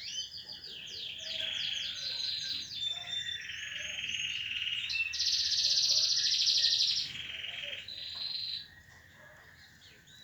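Domestic canary singing a long song of rapid rolling trills and repeated chirps, with its loudest, fastest trill a little past the middle; the song stops about two seconds before the end.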